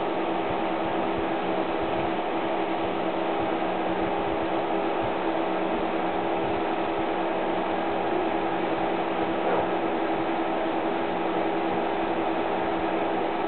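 Three small fans on a home-built laser diode rig running steadily: an even hum with several steady tones over a hiss.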